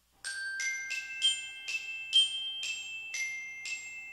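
Short chime melody: a run of about nine bell-like notes struck on mallet-played chimes, about two a second, each ringing on under the next.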